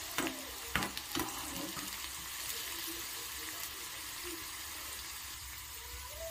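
Chopped spring onion greens sizzling in hot oil in a small pan, a steady frying hiss. A metal spoon stirs them and clicks twice against the pan about a second in.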